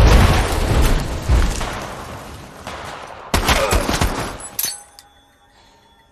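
Movie gunfire: a run of loud shots with heavy low rumble over the first second and a half, fading off, then a second burst of shots around three and a half to four and a half seconds in. The shots stop about five seconds in, leaving a faint held music drone.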